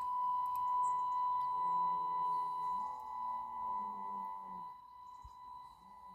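A steady high-pitched tone with overtones, held at one pitch, with faint voices beneath it.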